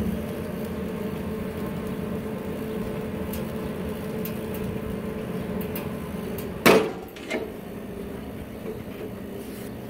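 Steel lid of a smoker built from an old air compressor tank shut with one loud clang about two-thirds of the way in, followed by a smaller knock, over a steady mechanical hum.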